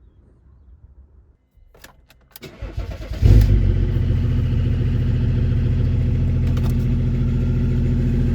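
BMW car engine starting: a few clicks, a short ragged crank, then it catches about three seconds in and runs steadily.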